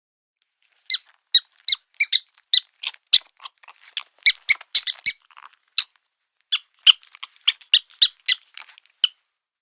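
Cartoon squeak sound effect: a quick, irregular run of short, high-pitched squeaks, like a rubber squeeze toy being squeezed over and over. The squeaks begin about a second in, pause briefly past the middle, then carry on until near the end.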